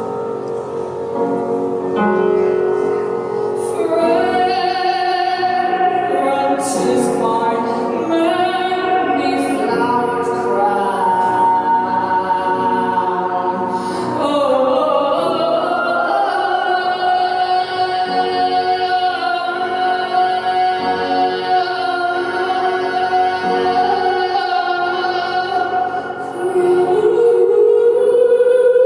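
A woman singing solo into a microphone in long, held notes that slide and waver in pitch, over steady sustained chords. Her voice grows louder and climbs near the end.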